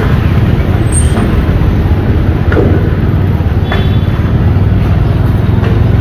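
Motorcycle engine running steadily on the move, under a loud, even rumble of wind on the microphone.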